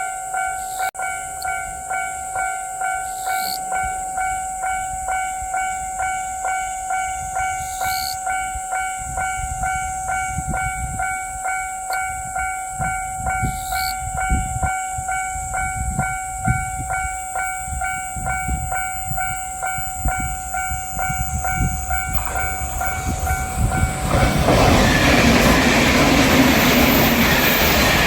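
Japanese level-crossing warning bells ringing with a steady, even 'kan-kan' rhythm. About 24 s in, a JR Shikoku 8000 series electric limited express passing over the crossing brings a loud rush of rail noise that takes over.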